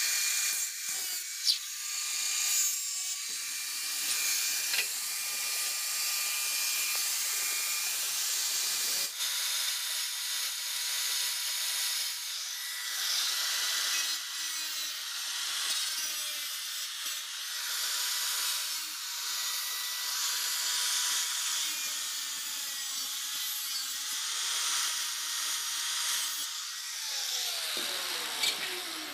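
Angle grinder with a thin cutting disc cutting into the top tank of a radiator core: a steady motor whine under a loud hissing cut. Near the end the grinder is switched off and the whine falls away as the disc spins down.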